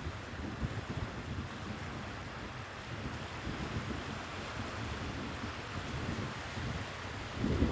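Sea waves washing on the shore, with wind buffeting the microphone as a flickering low rumble that swells into a stronger gust near the end.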